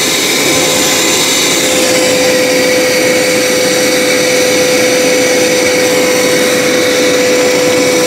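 A Hoover PowerScrub XL carpet cleaner's suction motor running steadily, with a constant whine over rushing air.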